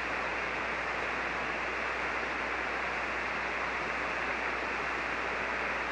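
Steady hiss of static and band noise from a shortwave ham receiver tuned to a 40-metre single-sideband channel, with no station transmitting. It holds an even level throughout, cut off sharply at the top like the receiver's voice passband.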